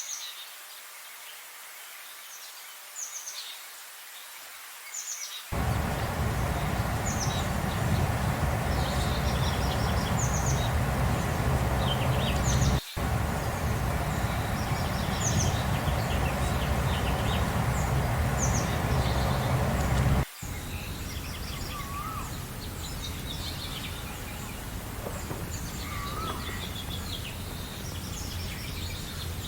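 Several birds chirping and singing in short repeated phrases over a steady background hiss. The hiss comes in suddenly about five seconds in, breaks off for an instant near the middle, and drops abruptly to a quieter level about two-thirds of the way through, like joins between separate recordings.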